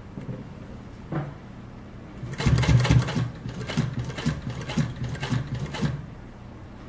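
Nakajima-built Chandler TDU N62 walking foot industrial sewing machine stitching through leather: after a single click about a second in, it starts with a loud burst about two and a half seconds in, then sews slowly at about two stitches a second before stopping about a second before the end, over a steady low hum.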